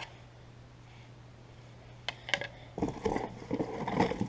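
Hands unwrapping packing material around a metal logo badge. A few light clicks are followed, about three seconds in, by a second and a half of irregular rustling and crinkling.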